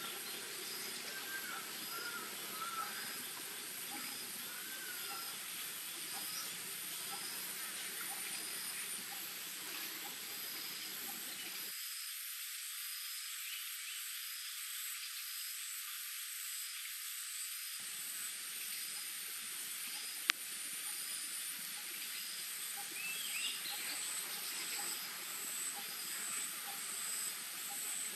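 Forest ambience of insects: a steady high buzzing, with a short chirp repeating about every second and a half. A few faint chirps come near the start and again later, and there is a single sharp click about two-thirds of the way through.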